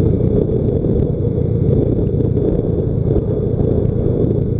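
A motorcycle being ridden along a road: a steady low rumble of the engine mixed with wind noise on the handlebar-mounted microphone.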